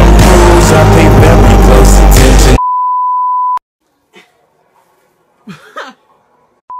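Rap song with a heavy bass beat playing loud, cutting off abruptly about two and a half seconds in, followed by a steady high beep tone lasting about a second. After that it is nearly quiet apart from a faint voice, and the same beep starts again right at the end.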